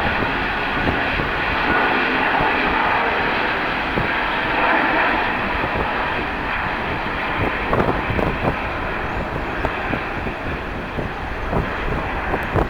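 Jet airliner's engines passing close by, a dense roar that peaks about five seconds in and then fades, with wind buffeting the microphone in the second half.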